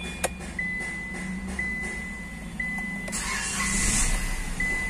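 Hyundai Xcent's dashboard warning chime beeping about once a second, with a sharp click near the start. About three seconds in, a second of starter cranking as the engine is switched off and restarted to check the fuel rail pressure sensor repair.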